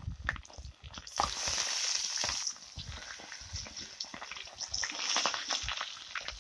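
Hot oil in an iron kadhai sizzling and crackling with many small pops as battered pieces deep-fry. The hiss swells about a second in and eases off again.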